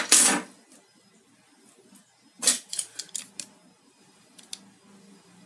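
Handling noise of a CCTV cable and small hand tools being worked on a wooden desk while the cable's outer jacket is cut with a cable knife: a short clatter at the start, a quick run of sharp clicks about two and a half seconds in, and a couple of faint ticks near the end.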